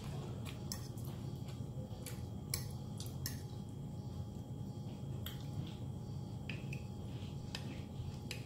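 Eating sounds: chewing with scattered small clicks, and a metal fork clinking on a dinner plate, over a low steady hum.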